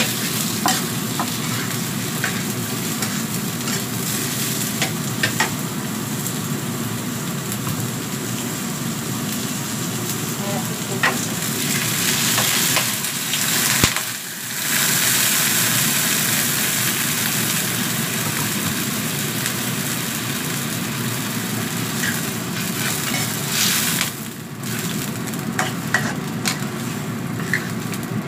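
Sliced bottle gourd sizzling as it is stir-fried in hot oil in a wok, with a metal spatula scraping and clicking against the pan. About halfway through, water is poured into the hot wok and the hiss grows louder and brighter for a while.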